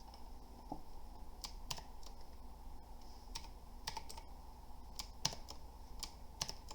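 Keys being typed on a budget tenkeyless mechanical keyboard: about a dozen irregular, clicky keystrokes.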